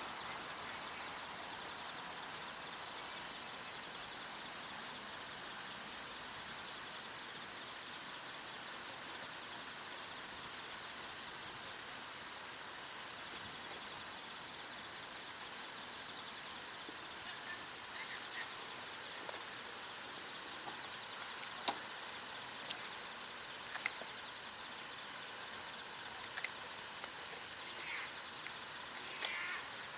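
Steady outdoor background hiss, with a few brief high chirps and clicks in the second half, the most noticeable a short burst of high notes near the end.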